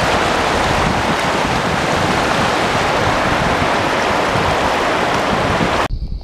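Fast river current rushing steadily around the legs of a wading angler. It cuts off suddenly near the end.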